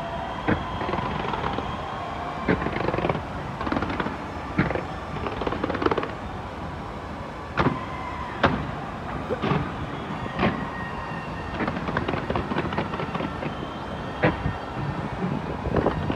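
Fireworks display going off: irregular sharp bangs and pops, the loudest about eight seconds in, over a steady low rumble.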